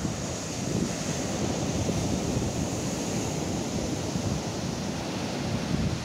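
Rough, storm-driven Black Sea surf breaking and washing up on a sandy beach in a steady roar, with wind rumbling on the microphone.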